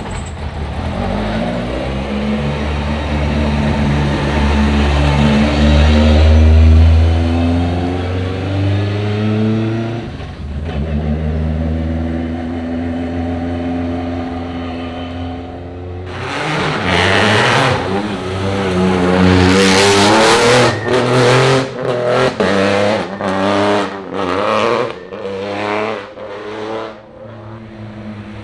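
Rally car engines running at high revs. The first half is a steady run whose pitch slowly falls. From about sixteen seconds in comes a hard acceleration, then the throttle is snapped on and off several times in quick succession.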